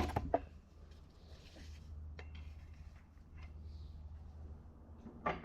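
A few faint clicks and taps of parts being handled, over a steady low hum.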